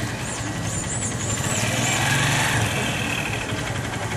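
A vehicle engine running, growing louder about two seconds in as it comes closer, with a few high chirps in the first second and a half.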